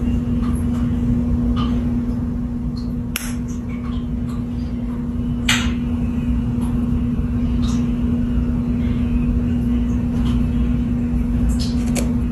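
Steady electrical hum and low rumble of saltwater aquarium equipment such as a pump, with a few sharp clicks, the strongest about three and five and a half seconds in and two close together near the end.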